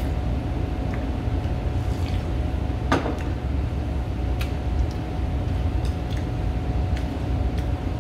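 Steady low room hum, with a ceramic bowl set down on the table about three seconds in and scattered light clinks of chopsticks against dishes.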